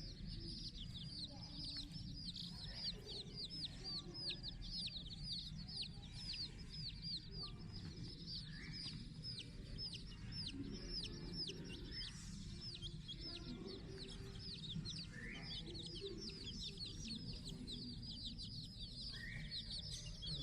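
A dense, continuous run of quick high chirps from small animals, each one sweeping downward, about three or four a second. A few lower rising calls now and then stand out over a steady low rumble.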